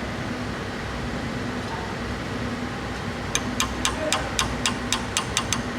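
Steady workshop hum, then about three seconds in a quick, even run of about eleven sharp metallic clicks, roughly five a second, from hand tool work on the engine.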